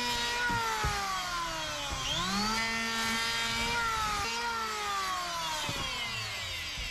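Corded electric hand planer running and cutting along a wooden strip: a steady motor whine that sags in pitch as the blades bite on each pass and picks back up. It winds down near the end.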